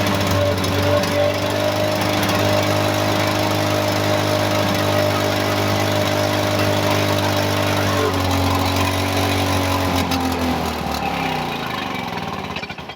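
Lawn-Boy mower's two-stroke engine running steadily at speed, then slowing about eight seconds in and dying out near the end. It stops because the small amount of fuel poured in runs out.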